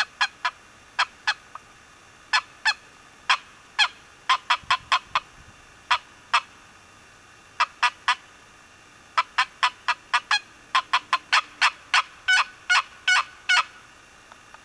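Turkey box call worked by hand, sounding runs of short, sharp turkey yelps with brief pauses between runs.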